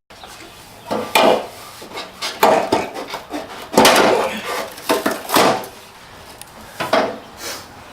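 A stuck panel on a Lexus RX350 being yanked and worked loose: about five bursts of scraping, knocking and rattling. It is hard to free, and the owner puts that down to double-sided tape underneath and a catch on a stud.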